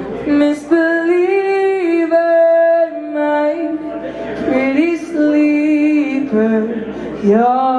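A teenage boy singing solo into a microphone through a PA, holding long notes with bends in pitch between them and hardly any instrumental backing.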